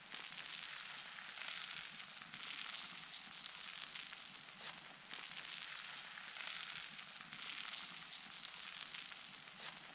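Egg and potato mixture sizzling on a steel hot plate over a wood fire, a soft steady hiss that swells and eases every few seconds, with a few faint crackles.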